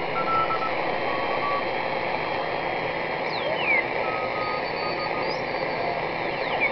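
Home-built regenerative shortwave receiver being tuned across the bottom of the 20-metre amateur band: steady band hiss through its speaker, with the whistling beat notes of Morse (CW) signals that slide down in pitch as the dial sweeps past them, several times over.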